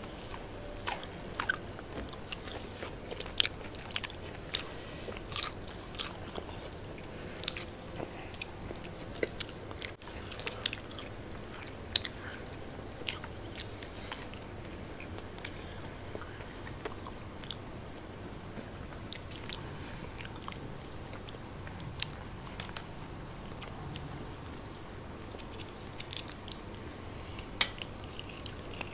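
Close-miked chewing of crunchy snack crackers and biscuits: a string of irregular sharp crunches and crackles over steady mouth sounds.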